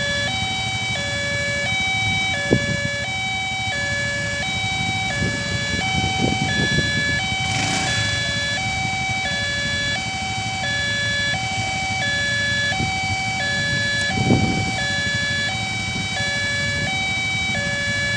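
Railway level-crossing electronic warning alarm sounding from the crossing's pole-mounted speaker: a two-tone chime alternating high and low about once a second, repeating steadily, with a constant higher tone above it. A low rumble of waiting road traffic runs underneath.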